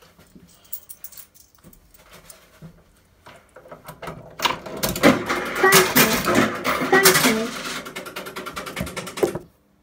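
Faint clicks of coins being handled, then a coin goes into a kiddie ride's coin slot about four seconds in and the ride plays a short musical jingle through its speaker, which cuts off suddenly just before the end.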